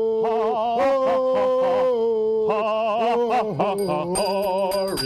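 Two men singing together, holding long notes that waver with vibrato. Near the end a Salvation Army handbell rings with quick repeated shakes.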